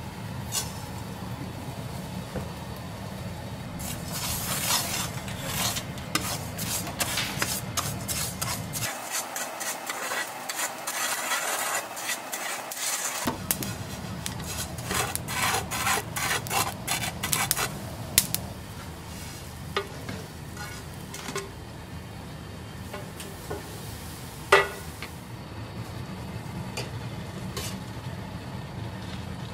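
A plastic spatula stirring and scraping dry white grains around a metal frying pan in quick rasping strokes. About two-thirds of the way through there is one sharp knock, followed by a quieter steady sizzle of flatfish frying in oil.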